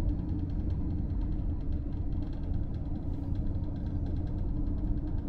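KiHa 54 diesel railcar's engine running with a steady low rumble, heard from inside the car as it moves slowly along a station platform.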